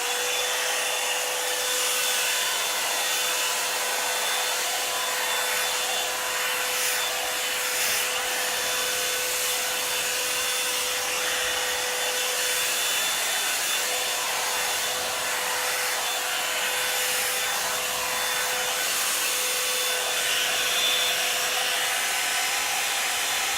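Revlon Salon One Step hair dryer brush running steadily: a rush of blown air with a steady motor whine.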